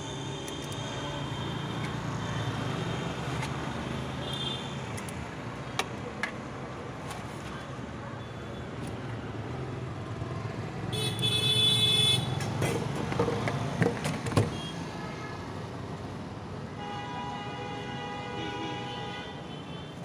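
Street traffic: a steady rumble of vehicles with horns honking, one loud horn about halfway through and a longer one near the end. There are a few short knocks just after the loud horn.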